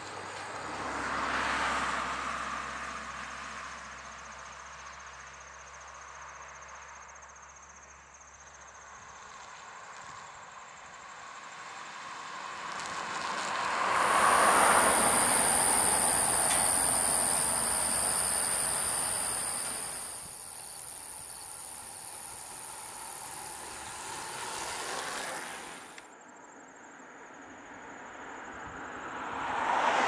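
Cars passing on a two-lane road: engine and tyre noise swelling and fading as each goes by, one about a second in, a louder, longer one in the middle, and another approaching near the end. A steady high hiss comes in abruptly mid-way and cuts off suddenly.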